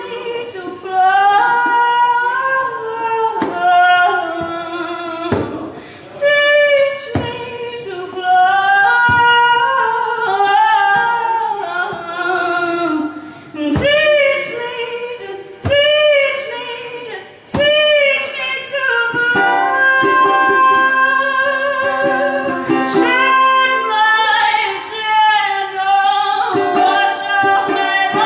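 A woman singing live, with long held notes that slide up and down, over a ukulele.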